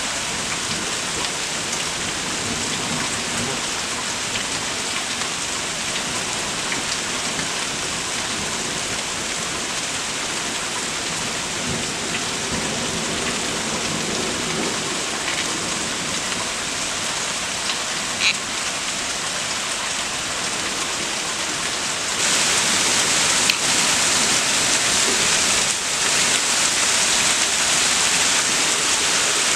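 Steady heavy rain falling during a thunderstorm, an even hiss that gets louder and brighter about three-quarters of the way through.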